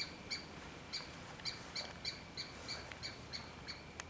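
A songbird hidden in the tree canopy repeating one short, sharp call about three times a second without a break, a persistent call that seems upset and that the listener takes for a distress call or a warning to keep other birds away.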